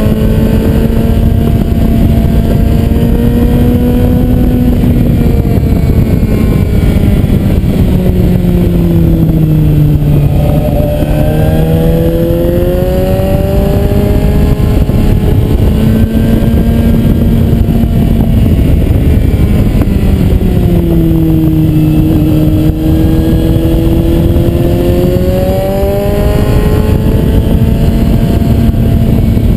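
Suzuki GSR 750's inline-four engine, heard from the rider's seat while riding. Its pitch falls twice, about a third of the way in and again past two-thirds, as the bike slows for bends, then climbs again as it accelerates out, over a steady rush of wind.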